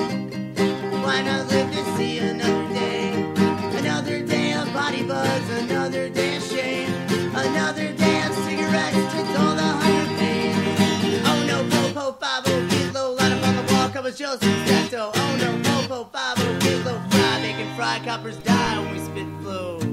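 Music: a folk punk song driven by fast strummed acoustic guitar.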